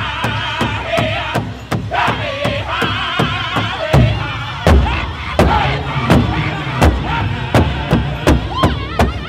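Powwow drum group singing high-pitched in unison over a steady beat on a large powwow drum struck by several drumsticks together. About four seconds in, the singing thins and the drum beats come louder.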